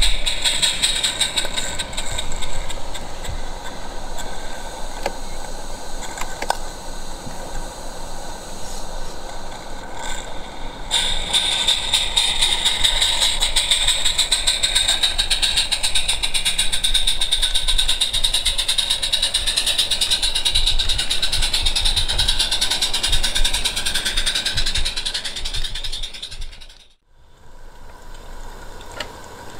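Small gas-fired live-steam garden-railway locomotive (32 mm gauge) running with a goods train: rapid exhaust beats and hiss with the clatter of wheels on track. The sound cuts off sharply near the end.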